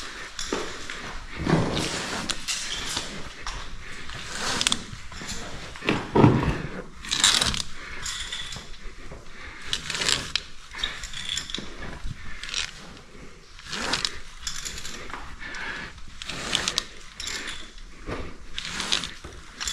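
Rope-ascending gear in use on a single-rope climb: ascender cams and carabiners clicking and jangling, and the rope scraping through the devices, in irregular bursts stroke after stroke.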